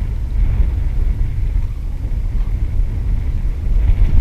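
Steady low rumble of wind buffeting an action-camera microphone on an open boat at sea.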